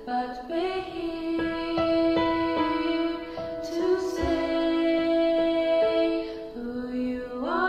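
A woman singing a slow song in long held notes, her voice layered with a second recorded track of her own voice.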